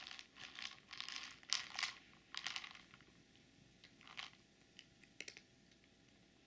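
A cat crunching dry kibble: a quick run of crunches through the first three seconds, then a few single crunches.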